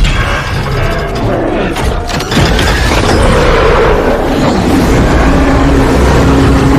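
Monster-film sound mix: heavy booms and crashes layered under music, loud throughout, with a sharp impact about two seconds in.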